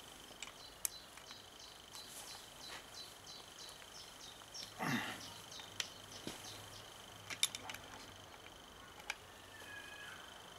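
Faint metal clicks of an open-end wrench and screwdriver on a valve-adjuster locknut of a Yamaha F15 outboard's rocker arm, as the set valve clearance is locked. Behind them runs a faint, rapid high chirping of about four chirps a second, and a short falling sound comes about five seconds in.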